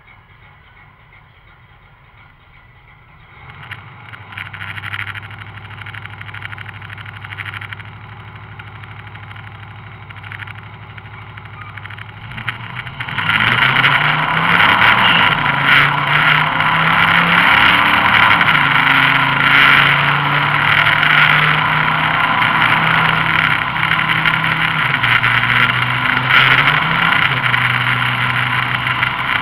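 Pickup truck engine idling at the drag strip's starting line, louder from about three seconds in, then launched at full throttle about 13 seconds in and accelerating hard, its pitch climbing and dropping in steps through the gear changes. Floored, the engine stutters, pops and crackles above about 3500 rpm, a fault the owner never managed to fix.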